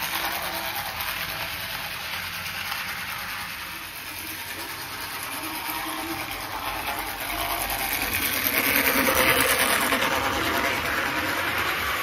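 Toy model trains running on plastic track: a steady rattling whir of wheels and motors on the rails, growing louder about eight to ten seconds in as a train passes close by.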